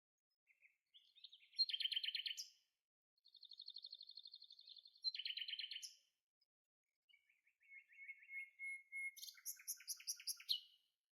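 A songbird singing: a run of short, rapid trilled phrases with brief pauses between them.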